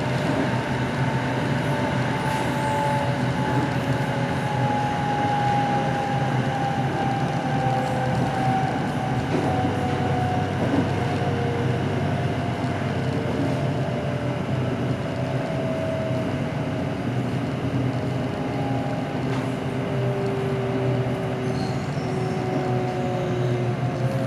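SRT Red Line electric train running steadily, with a constant rumble and a whine from its motors that slowly falls in pitch.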